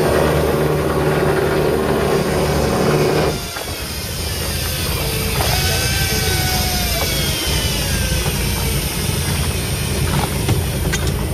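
Fishing boat's engine running steadily under wind and water noise. About three seconds in the sound drops abruptly to a lower, duller rumble. Falling whines come in midway, and a couple of sharp clicks near the end.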